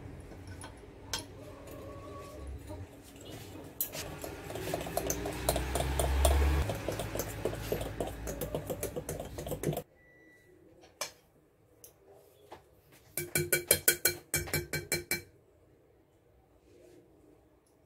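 Small wire whisk beating thick chocolate cake batter by hand in a glass bowl: rapid clicking and scraping of the wires against the glass. It runs without a break at first, stops abruptly about halfway, and comes back as a short run of fast strokes later.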